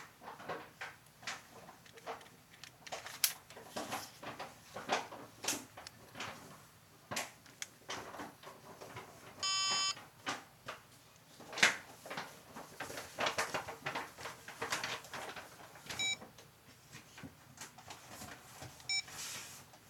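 Motorola StarTAC analog flip phone being handled and opened, with plastic clicks throughout. About halfway through, a half-second electronic beep sounds as it powers on. Two short beeps follow near the end.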